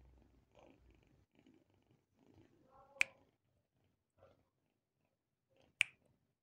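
A kitten making short, faint calls while being handled, with two sharp clicks about three seconds apart that are the loudest sounds.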